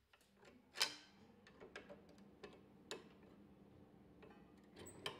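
Scattered light clicks and taps of metal as a scroll saw blade is threaded through the workpiece and fixed in the saw's upper blade clamp, the sharpest click about a second in.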